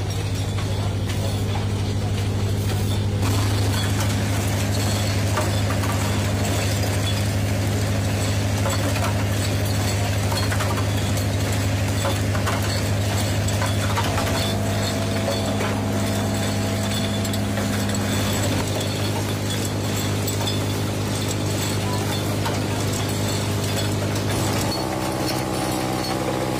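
Rotary glass-bulb forming machine running: a steady mechanical hum with many small clinks and clicks from the moving chucks and glass. The hum changes tone about halfway through and again near the end.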